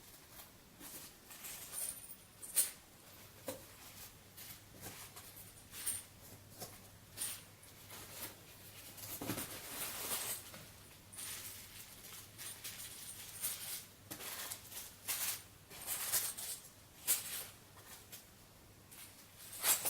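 Rummaging through packets of small metal grommets: irregular light clicks, taps and rustles of handling, with a faint steady hum underneath.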